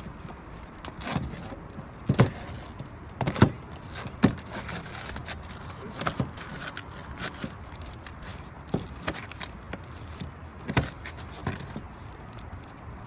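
Scattered short knocks and taps at irregular intervals, a few of them sharper than the rest, from a bowl and utensils being handled while slime is mixed.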